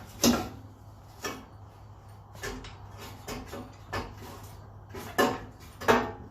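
Irregular metal clunks and knocks, about seven in six seconds, as the 1980 Chevy Malibu's 7.5-inch rear axle is worked down out of the chassis. The axle is sticking but starting to come loose.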